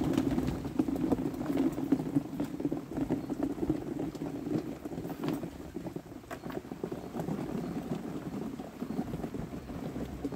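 Cherry tomatoes poured from a plastic bucket into a cardboard box: a dense, continuous patter of small fruit tumbling and knocking against the cardboard and each other.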